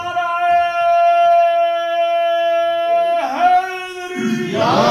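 A man's voice holding one long sung note, dipping briefly in pitch about three seconds in and then held again; near the end many voices of the gathering join in together.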